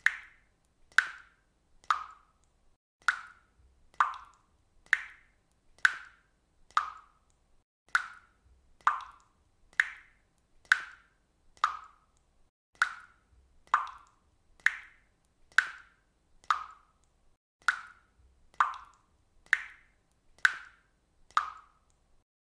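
Water dripping from a faucet: a short plop about once a second in a steady rhythm, the drops alternating slightly higher and lower in pitch.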